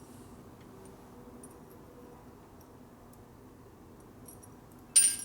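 Faint ticks and clicks of hand tools and small metal parts being handled, then one sharp metallic clink with a brief high ring near the end.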